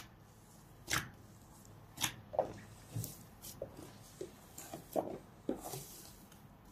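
Hands kneading and pressing a large mass of soft, fermenting tarhana dough in a plastic basin, knocking the rise out of it: faint, irregular squishes and soft thumps.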